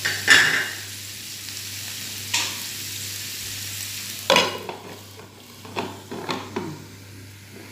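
Cabbage sizzling in a hot frying pan, with a sharp knock just after the start. About four seconds in, a glass pan lid clatters down onto the pan, and the sizzle goes quieter and duller under it, with a few lighter knocks as the lid settles.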